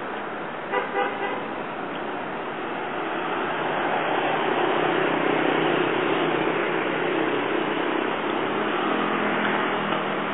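Street traffic noise with a short double toot of a vehicle horn about a second in. From the middle onward, the engine noise of passing vehicles swells louder.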